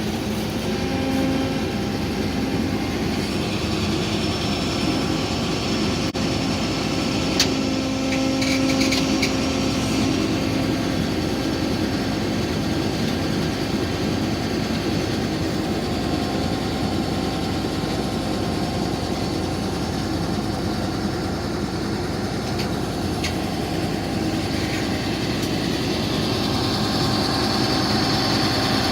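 John Deere 9770 combine's diesel engine running steadily at an even speed, with one sharp click about seven seconds in.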